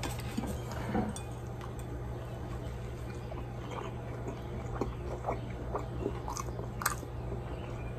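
A person biting into and chewing a grilled cheese sandwich: faint scattered mouth clicks, with one sharper click near the end, over a steady low hum.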